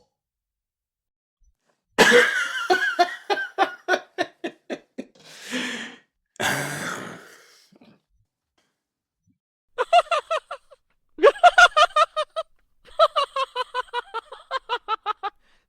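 Human laughter sound effects, two separate laughs. The first, about two seconds in, starts loud with quick 'ha' pulses that slow and fade, ending in two long breathy gasps. After a pause, a second laugh of rapid, even 'ha-ha' pulses comes in short runs at about six a second.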